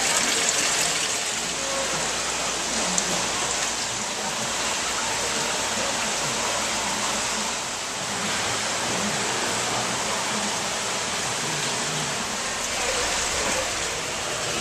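Steady rushing hiss of water running through aquarium tanks, with faint voices in the background.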